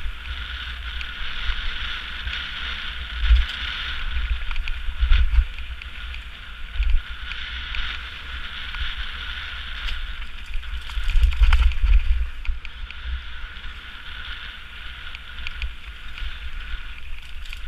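Mountain bike riding fast down a gravel singletrack: a steady hiss of tyres on loose gravel, scattered clicks and rattles from the bike over rough ground, and wind rumbling on the microphone in gusts, loudest a few times along the way.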